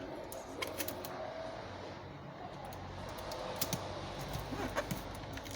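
Scattered light clicks and taps from hands handling clear tape and small plastic pieces, over a faint steady background.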